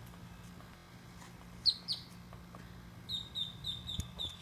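Small bird chirping: two sharp, falling chirps, then a quick run of about six short chirps near the end.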